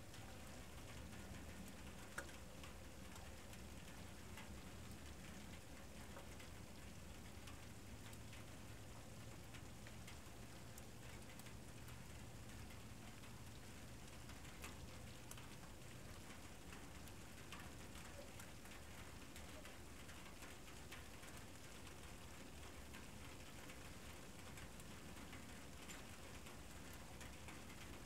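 Near silence: a faint steady hiss with scattered faint ticks, and one sharper click about two seconds in.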